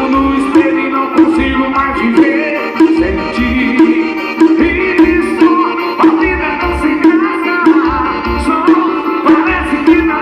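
Music played loud through a Chevrolet Cruze sedan's installed car sound system, with a melodic line over a heavy, regularly pulsing bass beat.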